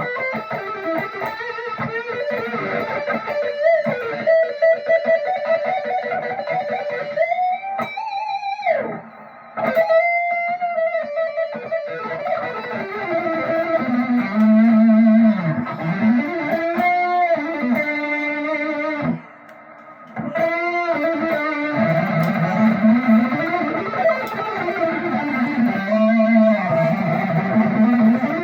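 Electric guitar with single-coil pickups, a Squier Classic Vibe '50s Stratocaster partscaster with Wilkinson pickups, playing lead lines with string bends and vibrato, with two short pauses. The player finds its single-coil high end brittle, weak and thin.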